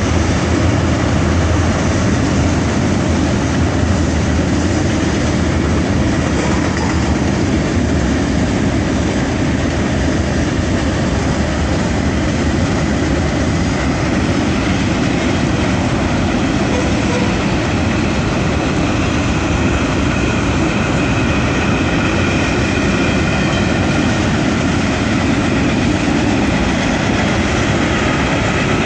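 Freight cars of a mixed manifest train rolling past: a steady, unbroken noise of steel wheels running on the rails.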